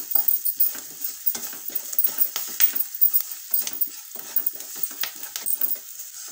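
Wooden spatula scraping and stirring spice masala around a nonstick kadhai in a quick, irregular series of strokes, over a steady hiss of the masala frying in oil on low flame.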